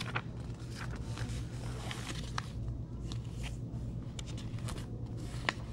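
Pages of a large paperback book being turned and handled, giving short papery rustles and crackles, the sharpest a little before the end, over a steady low hum.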